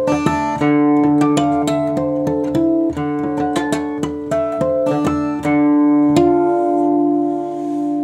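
Twelve-string acoustic guitar fingerpicked in quick single notes over sustained low notes. About six seconds in it settles on a chord left ringing, its loudness wavering as it dies away.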